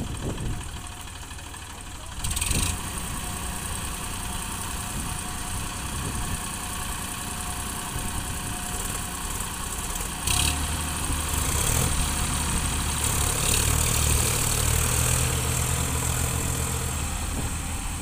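Diesel tractor engines running as one tractor tows another out of deep mud. About ten seconds in, the low engine note gets stronger and louder as the tow takes up the load. There is a brief knock about two seconds in and another at about ten seconds.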